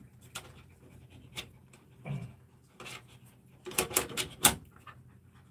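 Dachshund moving against a plastic pen fence: scattered clicks and scrapes of claws, then a quick cluster of sharper clicks with a short breathy sound about four seconds in.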